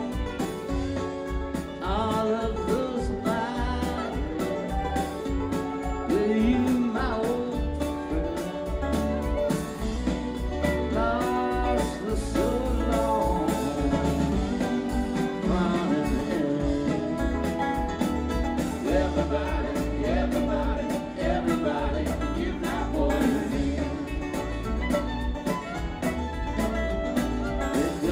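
Background music: a country/bluegrass-style song with singing over guitar, playing steadily.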